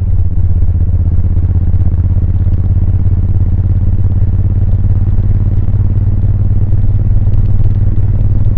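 Suzuki VL1500 Intruder's V-twin engine and exhaust running steadily while the motorcycle is ridden, a low pulsing rumble mixed with wind noise on the microphone.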